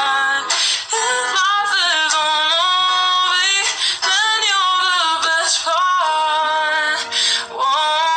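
A woman's voice singing a melody, with held notes that glide and waver between phrases and short breaks for breath.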